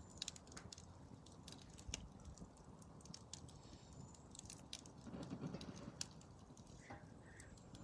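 Small fire of dry sticks crackling faintly, with scattered irregular snaps and pops and a brief louder rustle about five seconds in.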